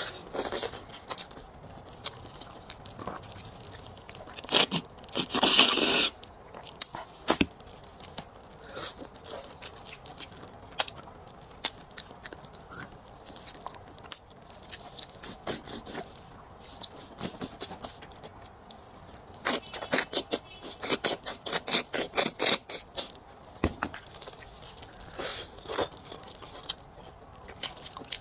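Close-miked mouth sounds of eating bone marrow: sucking and slurping at the end of a braised shank bone, with wet lip smacks and clicks. A longer, louder slurp comes about five seconds in, and a fast run of smacking clicks comes around twenty seconds in.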